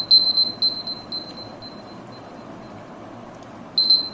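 Phone countdown timer alarm going off, marking the end of a 1.5-minute timer: a run of short, high beeps that fade over about a second and a half, starting again near the end.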